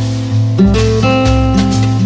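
Background music: a strummed guitar over a steady bass line, with the chord changing every half second or so.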